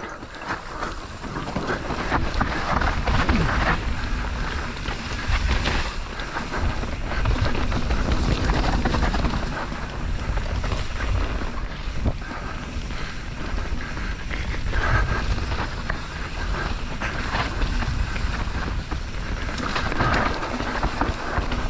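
Mountain bike ridden fast down a wet dirt trail: wind buffets the microphone over a constant low rumble of tyres on mud and leaves, with frequent small knocks and rattles from the bike over bumps.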